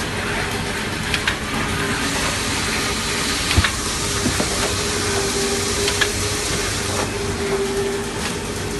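Automatic band saw roll-cutting machine for tissue logs running: a steady hiss and hum with a held mid-pitched tone. A few sharp clicks and knocks from the mechanism, the loudest about three and a half seconds in.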